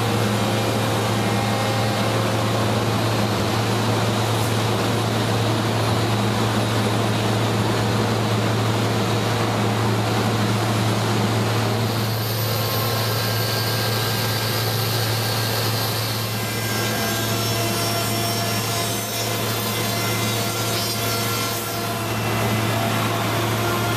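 Timber-frame shop noise: a steady machinery drone with a constant low hum, over scraping and rubbing of heavy timbers being worked. The mix shifts about halfway through.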